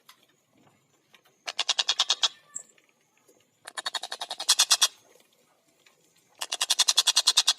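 Tengkek buto (stork-billed kingfisher) giving rapid cackling calls: three bursts of fast repeated notes, about a second each, with short pauses between them.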